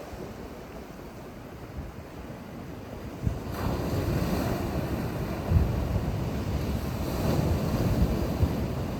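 Sea waves on the shore: a quieter wash, then a wave breaks about a third of the way in and the surf stays louder. Wind buffets the microphone with a gusty low rumble.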